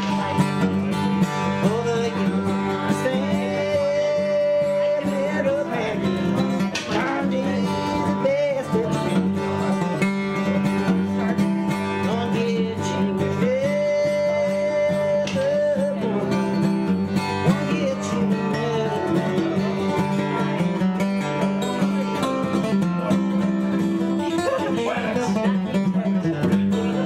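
Acoustic guitar played in a country-bluegrass style, with a man singing over it. He holds long notes about four seconds in and again about halfway through.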